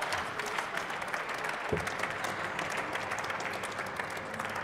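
Applause from members of parliament in a large plenary hall: a dense patter of clapping that slowly dies away.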